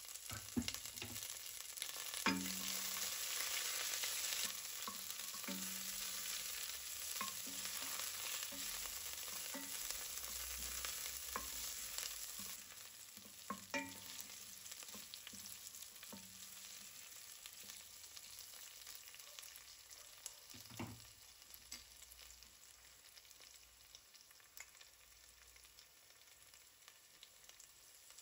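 Onions, curry leaves and pandan leaves sizzling in hot oil in a stainless steel pot, stirred with a wooden spoon that knocks against the pot now and then. The sizzle drops to a quieter level partway through.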